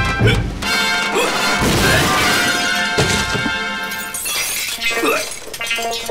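A dish crashing to the floor and shattering, over a continuous cartoon music score, with a character's short wordless vocal sounds.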